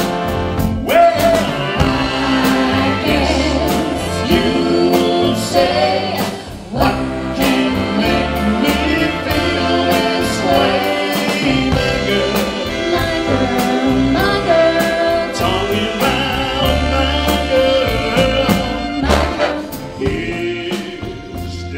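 A big band of saxophones, brass and drums playing with a male lead vocalist singing over it, the drums keeping a steady beat.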